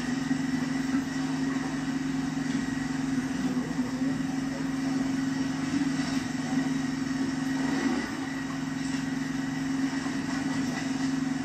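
Steady, unbroken low mechanical drone, like a motor running.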